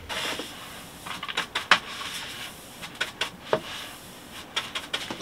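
Loose potting soil being wiped and brushed off a table by hand: irregular brushing swishes with scattered small clicks and taps.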